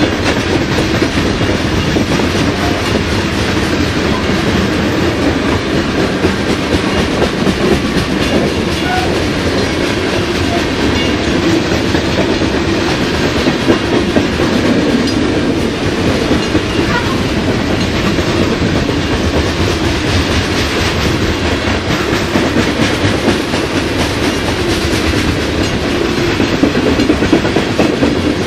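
Canadian Pacific coke train's tall open-top hopper cars rolling past at steady speed, their wheels making a continuous rumble with clickety-clack over the rail joints.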